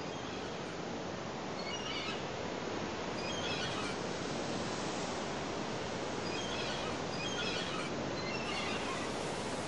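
Steady rushing noise like surf or moving water, with short, faint chirps about five times.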